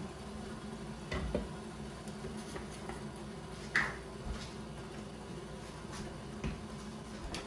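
Red lentil stew (misir wot) bubbling at a simmer in an uncovered pot after boiling water was added, a steady soft bubbling with a few light clicks.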